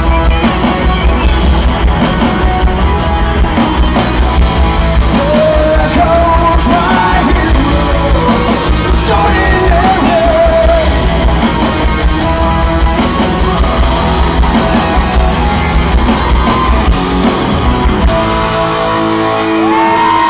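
Live rock band with a male singer over guitar and drums, loud and full. Near the end the beat drops away, leaving a held note.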